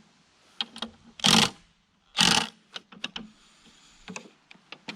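Hands working parts of a battery lawnmower: a few light mechanical clicks and two short, loud noises about a second apart.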